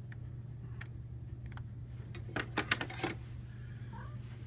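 Electrical plug and cord being handled and pushed into an outlet: a quick cluster of sharp metallic clicks and rattles about two and a half seconds in, over a steady low hum.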